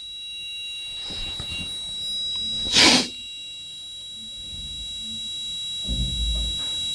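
Small piezo buzzer of a single-chip digital alarm clock ringing its alarm: a steady, high-pitched electronic tone with several overtones, driven by a push-pull oscillating signal rather than a plain on/off. A short burst of noise comes about three seconds in, and a low thump near the end.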